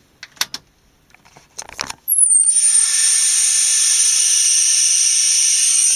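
A few faint clicks. Then, about two seconds in, a homemade Darlington-and-wall-transformer oscillator starts up with a loud high whistle that drops quickly and settles into one steady, piercing high tone over a hissing noise. This is the circuit's "scream" mode.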